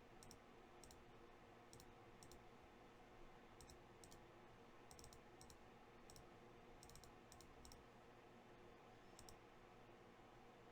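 Near silence with faint, sharp clicks scattered irregularly, several coming in quick pairs or threes.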